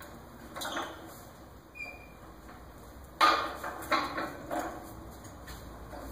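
Metal clanks and rattles from a manual pallet jack being moved and handled, with a brief squeak about two seconds in. The loudest clank comes a little past the middle, followed quickly by a few smaller knocks.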